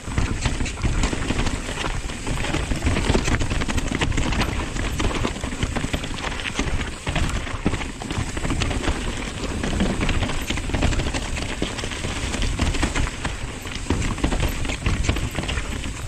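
Nukeproof Dissent 290 RS downhill mountain bike rattling down a rocky trail strewn with dry leaves: tyres rolling and crunching over rocks and leaves, with a constant clatter of small knocks as the bike is jolted.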